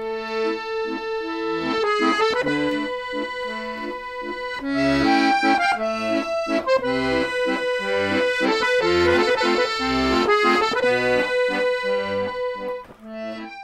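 Instrumental background music with a steady, bouncy rhythm of bass notes under held chords, fading out near the end.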